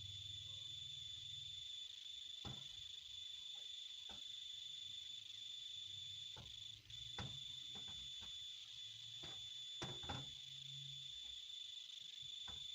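A steady high-pitched whine holding one pitch, with scattered light clicks and knocks over it.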